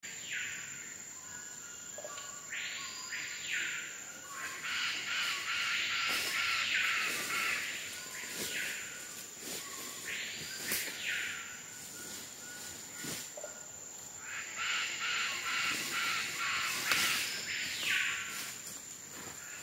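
Amazon rainforest sounds: harsh, rasping animal calls come in bouts a few seconds long, over a steady high-pitched insect tone.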